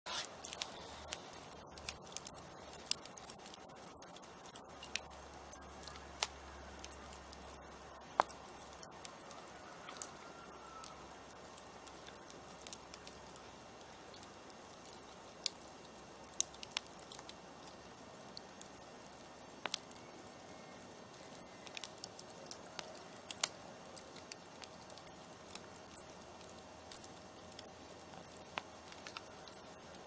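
Wood fire crackling, with scattered sharp pops. Throughout runs a rapid train of short, very high-pitched chirps, two or three a second.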